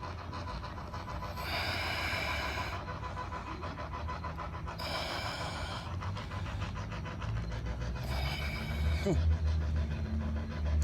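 Three long, hissing breaths, each about a second long and about three seconds apart, over a steady low rumble.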